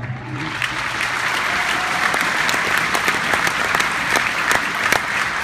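Arena crowd applauding, swelling up within the first second and then holding steady, with many sharp individual claps standing out.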